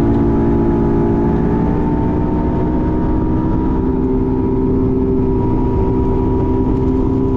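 Boat's outboard motor running at steady cruising speed across the water, a loud, even engine drone with a constant pitch.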